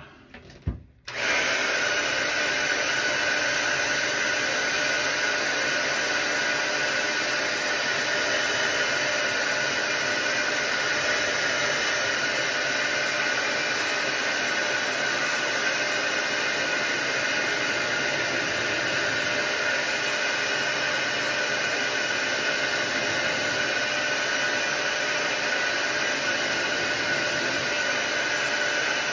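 Handheld hair dryer with a cone nozzle, switched on about a second in and then blowing steadily on one setting.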